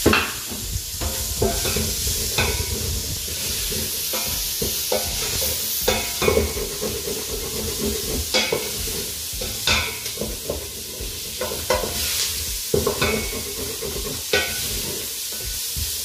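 Onions frying in oil in a stainless steel pot, sizzling steadily while a wooden spoon stirs them, scraping and knocking against the pot at irregular moments.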